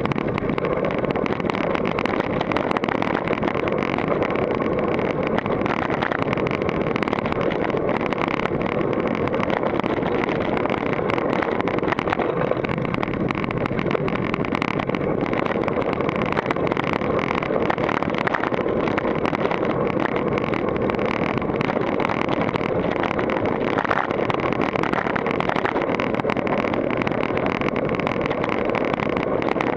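Continuous rattle and clatter of a GT Force Carbon downhill mountain bike bouncing over a rocky dirt trail, with tyre noise and wind on the action camera's microphone blended into one loud, steady din.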